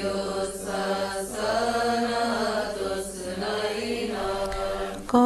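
Coptic praise hymn (madeeh) chanted without clear words, quieter and drawn out between two sung verses.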